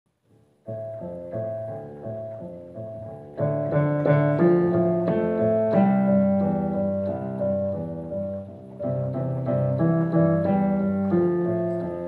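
Piano music starting a little under a second in: a slow, repeating figure of notes that grows fuller and louder from about three and a half seconds.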